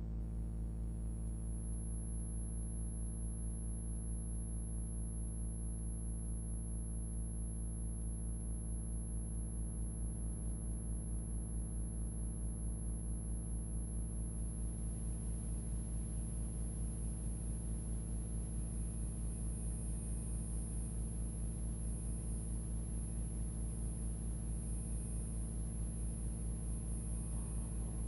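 Sustained electronic drone: a deep bass tone under a stack of steady held tones, beating in a fast, even pulse. A faint hiss joins above it about halfway through.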